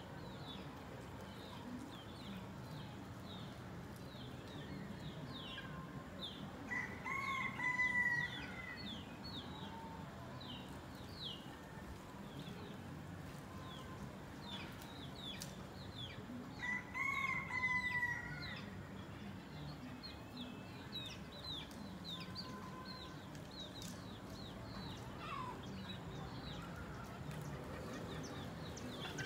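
A rooster crowing twice, about ten seconds apart, each crow lasting about two seconds. Quick, high bird chirps carry on underneath throughout.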